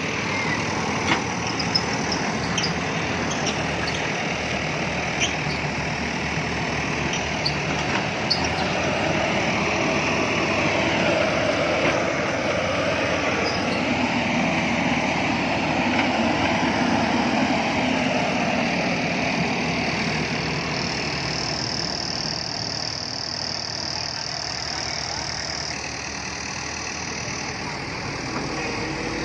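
Diesel engine of a JCB backhoe loader running steadily, with a few sharp clicks and knocks in the first several seconds.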